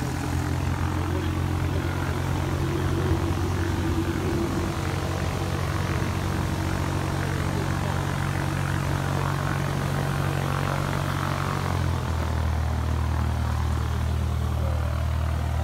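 An engine running steadily at a low, even note, which drops slightly in pitch about twelve seconds in.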